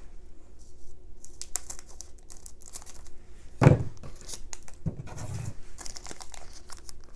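Pokémon card product packaging being cut and torn open by hand: crinkling and rustling with scattered small clicks. A single heavy thump about halfway through is the loudest sound, with a softer thump about a second later.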